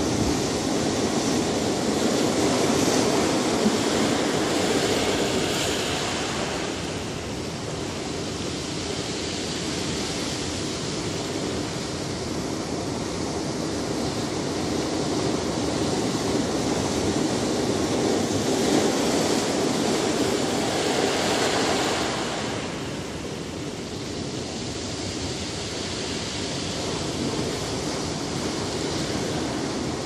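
Ocean waves breaking and washing in: a continuous rush of surf that swells twice, a few seconds in and again for a stretch past the middle, easing off between the surges.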